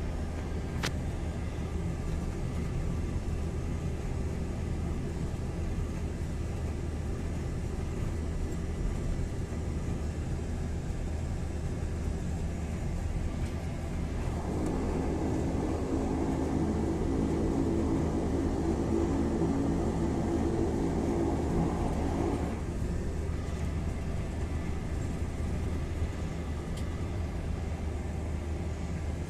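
A propeller airplane's engine drones steadily, heard from inside the cabin as it taxis. About halfway through, a louder humming layer joins for some eight seconds and then drops away.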